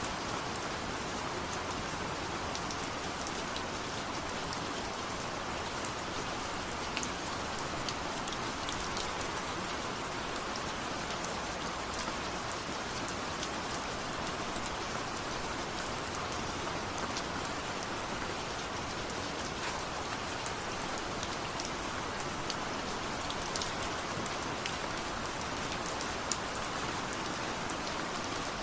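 Steady rain falling, an even hiss with the patter of individual drops ticking on a surface.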